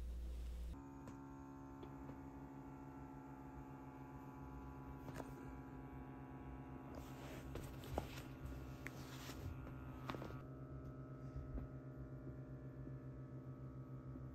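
Steady electric hum with a low buzzing tone, setting in about a second in. Faint rustling and a few light clicks come in the middle.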